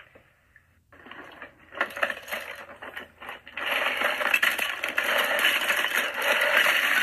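Loose Lego bricks clattering and rattling as they are stirred around in a plastic storage bin. The clatter starts about a second in and becomes louder and denser about halfway through.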